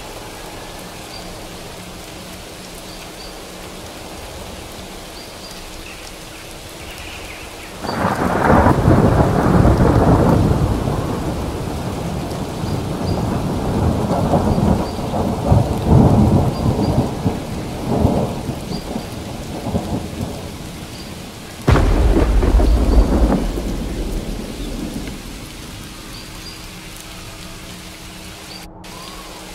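Thunderstorm: steady rain with two claps of thunder. The first breaks suddenly about eight seconds in and rolls on for over ten seconds; the second hits sharply a little past twenty seconds and fades within a few seconds.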